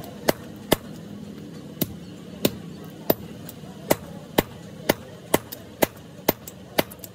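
Hammer strikes on red-hot leaf-spring steel on a block anvil: sharp, ringing blows, about a dozen of them at roughly two a second, unevenly spaced.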